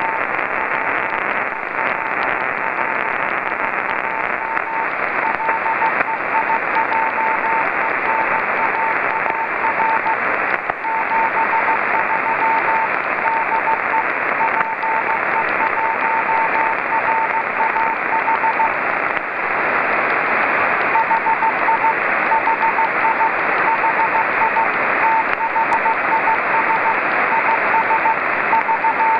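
Morse code (CW) beacon from the VO-52 amateur radio satellite's Dutch transponder, heard through a Yaesu FT-817 receiver: a single steady-pitched beeping tone keyed in dots and dashes over the receiver's hiss. The keying stops for about two seconds roughly two-thirds of the way through, leaving only hiss, then resumes.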